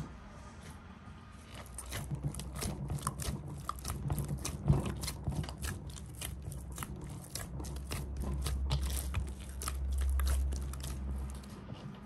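Rapid crisp clicks and crunches, several a second, starting about two seconds in, with a low rumble swelling in the second half.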